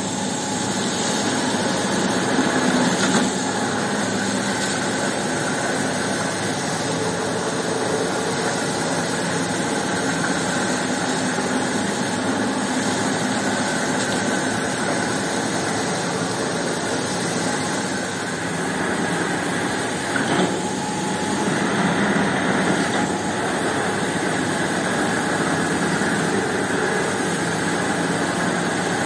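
Motorised carpet-scrubbing machine running steadily as it is worked over a wet, soapy rug, with water spraying from a hose onto the carpet.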